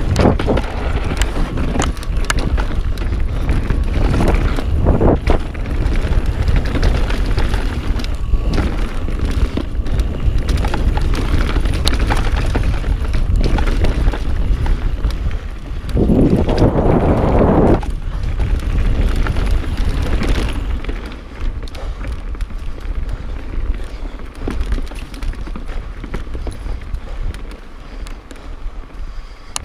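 Mountain bike ridden fast down a dry dirt singletrack, heard from a chest-mounted action camera: wind buffeting the microphone, tyres rolling over dirt, and the bike clattering and knocking over bumps. About halfway through there is a louder rush for a couple of seconds, and the last third is somewhat quieter.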